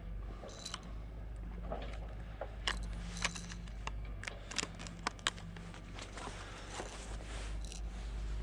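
Plastic blister packaging crinkling and clicking in the hands as a squid jig is unpacked, a run of sharp little snaps and rustles, busiest in the middle, over a steady low background rumble.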